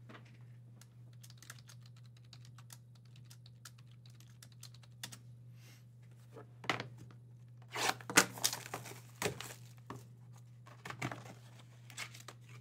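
Scattered light clicks and taps of hands handling plastic card slabs and boxes, then a burst of crinkling and tearing about eight seconds in as the packaging of a sealed trading-card box is opened, over a steady low hum.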